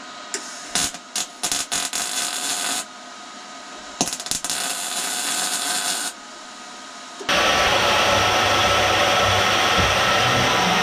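Arc welding on steel: the arc crackles in a few short bursts, then in one longer weld of about two seconds. About seven seconds in, a band saw starts cutting through a steel round bar with a loud, steady cutting noise.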